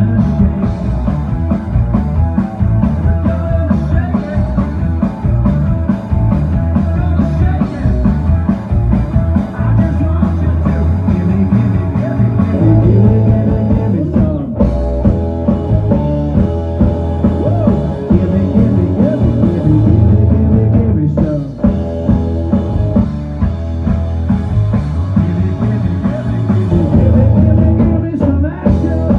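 Rock band playing live, electric guitar and bass over drums, loud and bass-heavy.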